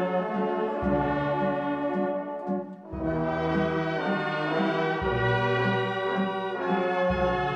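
A band playing a slow Maltese funeral march, led by brass: held chords over long low bass notes that change about every two seconds, with a brief break between phrases near three seconds in.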